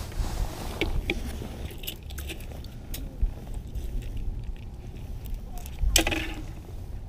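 Close handling noise as a fisherman baits his hook from a minnow bucket: rustling jacket and small clicks right at the microphone over a low steady rumble, with a louder scrape about six seconds in.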